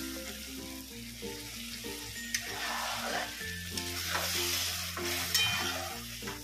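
Soybean-chunk masala gravy sizzling in a hot pan just after more water is added, stirred with a spatula that clicks against the pan twice. The sizzle swells in the middle. Light background music with a steady bass plays underneath.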